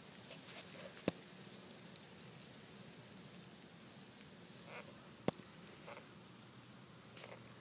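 Quiet background with a few soft rustles and two short sharp clicks about four seconds apart.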